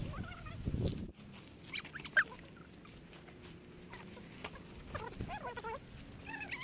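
Chickens clucking in short, falling calls, with scattered rustles and clicks of nylon tent fabric being handled.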